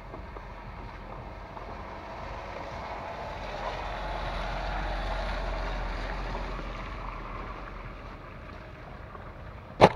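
A car drives past on a wet, slushy road, its tyre hiss and engine swelling and then fading over a few seconds. A single sharp knock comes near the end.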